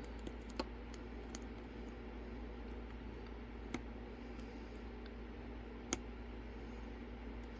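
Pick clicking against the pins of a Lockwood Twin padlock as it is picked: a few sparse, sharp little clicks, the loudest about six seconds in, over a steady low hum.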